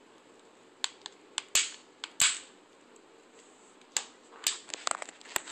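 Sharp plastic clicks and snaps of a Samsung Galaxy S Captivate's inner cover being pressed back onto the phone by hand. The two loudest come about a second and a half and two seconds in, with a quicker run of smaller clicks near the end.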